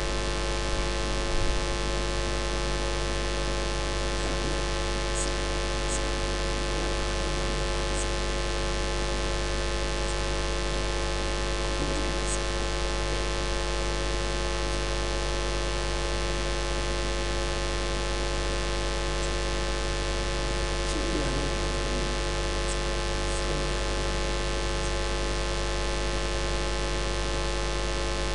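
Steady electrical mains hum and hiss from the mosque's sound system during a silent stretch, with a few faint clicks.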